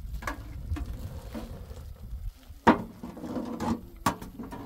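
Metal ladle clinking and scraping against a cooking pot and a tin can while liquid is ladled, a series of sharp knocks, the loudest about two and a half seconds in.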